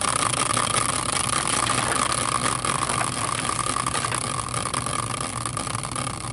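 A caster wheel on a homemade wooden stand, spun by hand, whirring steadily with a single ringing tone as it coasts, slowly fading as it loses speed.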